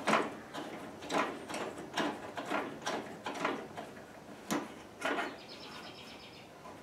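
Blade-height crank of a WEN 3720 table saw being turned in small moves, the elevation mechanism giving a run of irregular clicks and creaks that stops after about five seconds.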